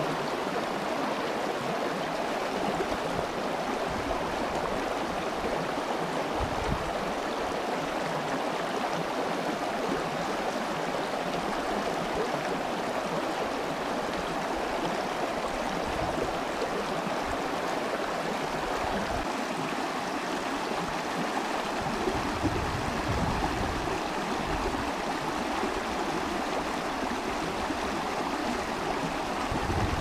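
Shallow stream flowing over stones: a steady, even rush of running water.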